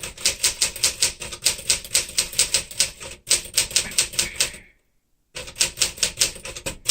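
1964 Smith-Corona Sterling manual typewriter being typed on at a quick, even pace, about five keystrokes a second. The clacking breaks off briefly about five seconds in, then carries on.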